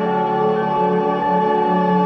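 Ambient background music of long, held tones.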